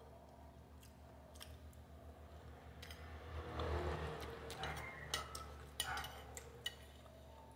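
Close-up chewing and mouth sounds of eating pasta, then a metal spoon clicking and scraping against a ceramic plate a few times in the second half.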